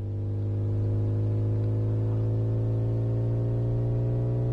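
Animated car's engine sound effect: a steady buzzing hum whose pitch rises slowly as the engine revs climb during acceleration, swelling in over the first second.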